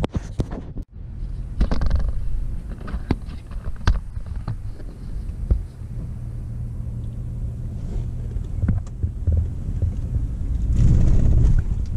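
Engine and tyre rumble of a vehicle driving slowly, heard from inside the cabin, with scattered clicks and knocks. The rumble grows louder near the end.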